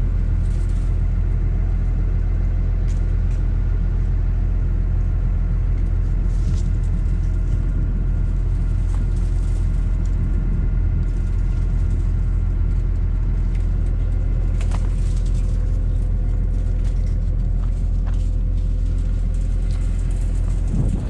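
New Holland RG140B motor grader's diesel engine running at a steady, unchanging speed: a continuous low drone.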